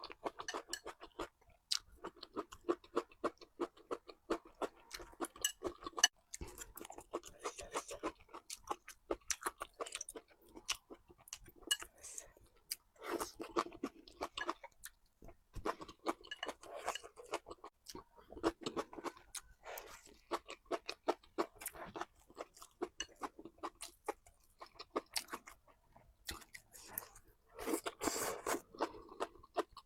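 Person chewing and crunching food close to the microphone, with many irregular sharp clicks and louder bursts of crunching every few seconds.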